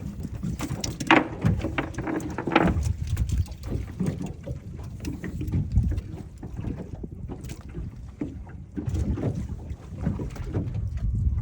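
Water slapping against the hull of a small drifting fishing boat, with wind buffeting the microphone and a few irregular splashes or knocks, the loudest about a second in and near 2.5 s.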